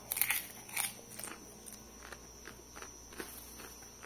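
A person chewing popcorn close to the microphone: irregular soft crunches, strongest in the first second or so, then fainter.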